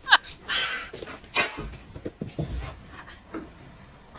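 A woman's giggling laugh tails off, followed by breathy huffing and a few light knocks.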